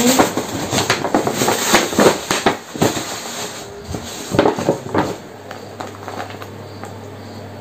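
Tissue paper and a paper gift bag rustling and crackling as hands dig through them, in quick irregular bursts that die down about five seconds in, leaving a low steady hum.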